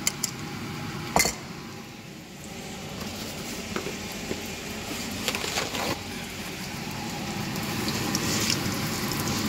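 Banana fritters sizzling in hot oil in a frying pan, a steady crackling hiss that fades a little about two seconds in and then grows again. A single sharp knock sounds about a second in.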